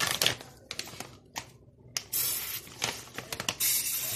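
Fornet oven-cleaner aerosol spraying into a plastic zip-lock bag: a hissing spray burst about two seconds in and a second, shorter one near the end, with the plastic bag crinkling at the start.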